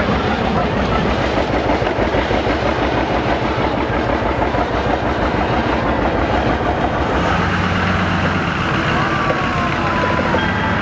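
Farm tractor engine running with a steady rhythmic beat as it tows a hay wagon slowly past. About seven seconds in, a deeper, steady engine hum joins as a locomotive-styled parade car comes alongside.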